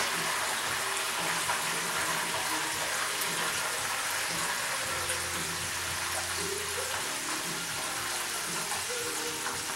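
Squares of beignet dough frying in a pan of hot oil, with a steady sizzle. A faint low hum comes in about halfway through for a couple of seconds.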